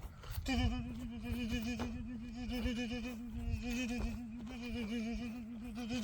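A man imitating a helicopter with his voice: one long, steady hummed tone that wobbles rapidly up and down in pitch. It breaks off briefly at the very start, then carries on without a pause.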